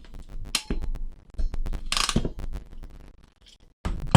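Iwiss ratchet crimping tool being squeezed shut on a non-insulated wing-type terminal, its ratchet clicking step by step in a run of sharp clicks over about three seconds as the jaws fold the wings onto the wire.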